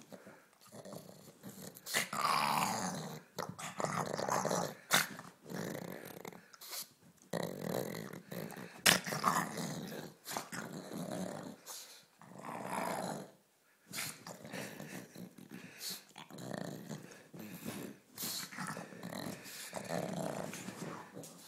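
Pug play-growling and snorting in repeated short bouts with brief pauses, with a few sharp clicks.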